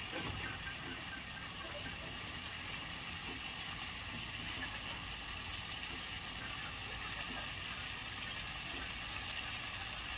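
Vegetables cooking in a kadai with a little water: a steady sizzling, bubbling hiss, with a few faint ticks.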